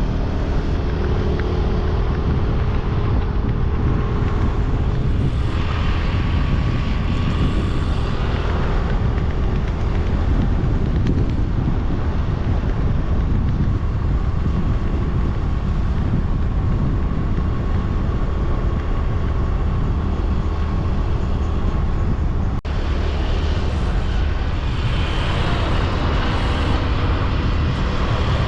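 A moving vehicle's engine and road noise, steady and loud throughout, with a faint engine tone shifting in pitch near the start.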